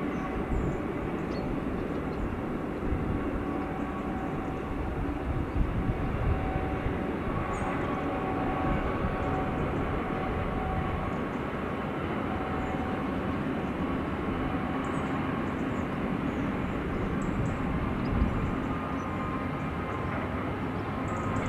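Freight train hauled by a DB Cargo Class 66 diesel locomotive passing at a distance: a steady rumble of its covered wagons rolling along the track, with a faint whine that comes and goes.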